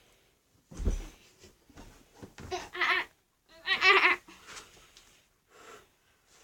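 A girl imitating a monkey with her voice: a few short, high-pitched wavering calls, with laughter-like sounds mixed in.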